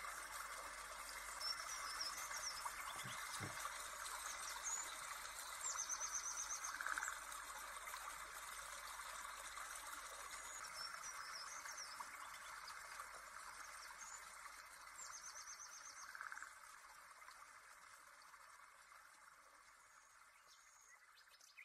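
Faint nature ambience: birds chirping and trilling over a steady rushing hiss like a running stream, fading out near the end.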